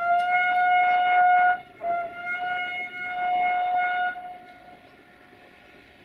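Locomotive horn sounding two long blasts at one steady pitch. The second blast follows a short break, a little under two seconds in.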